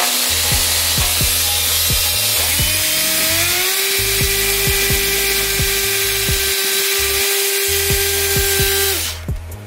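Cordless drill with a step drill bit cutting into a car's sheet-metal firewall: a steady hiss of cutting with the motor whine rising in pitch about three seconds in, then holding until the drill stops about nine seconds in. Background music with a beat plays underneath.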